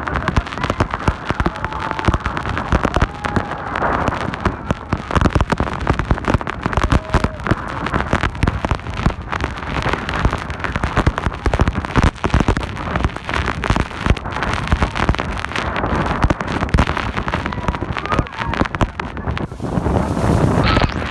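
Waterfall spray and wind blasting the microphone: a loud, dense rush full of crackling rattles, like heavy rain, with a few faint voices in it.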